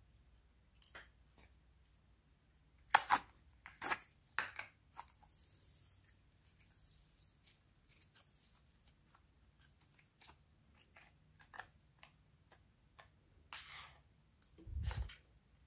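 Sticky slime and clay being kneaded and folded by hand, giving off scattered clicks, crackles and snaps, the loudest a few sharp snaps about three to four seconds in. A dull thump near the end.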